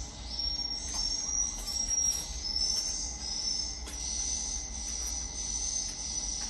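Recorded swiftlet calls played through a swiftlet house's amplifier and speakers: a run of short, high-pitched chirps, each about half a second, turning into a steadier high twitter after about four seconds. The call is being tuned on the amplifier to lure and settle swiftlets.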